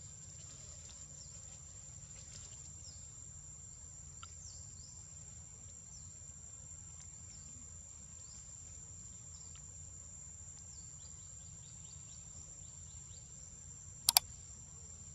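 Steady high-pitched insect drone with scattered short faint chirps over a low background hum. About a second before the end come two sharp clicks: the mouse-click sound effect of a subscribe-button animation.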